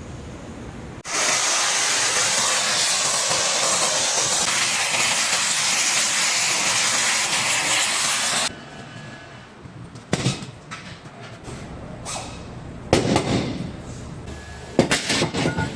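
A loud, steady hiss of pressurised air or spray that starts abruptly about a second in and cuts off sharply after about seven seconds, followed by several short metallic knocks and clanks of tools on the parts.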